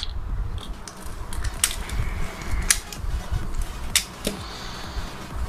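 Plastic speedcube pieces clicking as the cube is taken apart and its pieces handled for lubing: a few sharp clicks about a second apart over low handling rumble.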